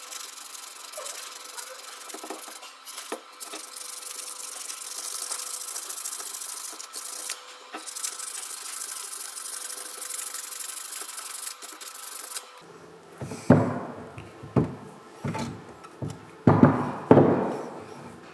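Steady abrasive rubbing, as of sanding or scrubbing a restored alternator part by hand, running for about twelve seconds. It stops abruptly, and a series of sharp knocks and clunks follows as parts are handled.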